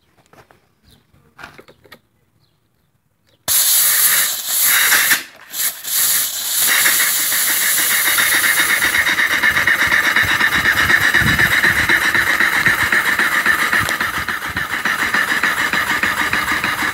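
Loud compressed-air hiss starting suddenly about three and a half seconds in, with the compressor's regulator out so pressure is bled off first; after two brief dips it settles as an 1840s–1850s single-cylinder reversing steam engine, 2.5-inch bore and 5-inch stroke, runs on about 25 psi of air, giving a steady hiss with a fast, even pulse from its exhaust.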